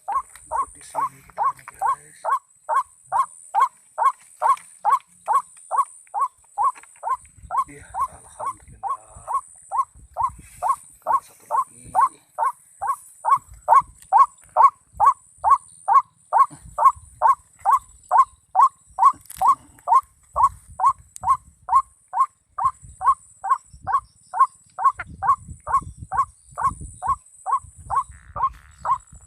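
White-breasted waterhen call, a short falling note repeated very evenly about two and a half times a second without a break, the lure call for trapping ruak-ruak. A faint steady high hiss sits under it, with a few low rustles.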